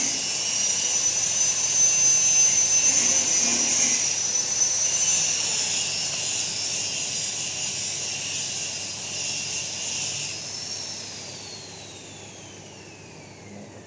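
Motor of a taro processing machine running with a high whine. About eleven seconds in it is switched off, and the whine falls steadily in pitch as it spins down.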